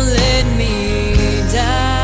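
A recorded song: a woman singing over a steady instrumental backing, holding one long note from about halfway through.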